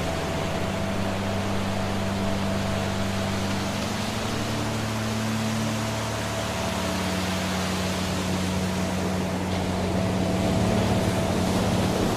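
Waterfall rushing as a steady, even hiss of falling water, with low sustained drone tones of ambient relaxation music underneath that shift pitch about four and six and a half seconds in.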